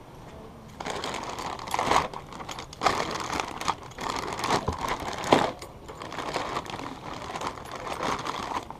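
Crinkling, rustling handling noise: irregular rustles and sharp clicks start about a second in and keep going unevenly.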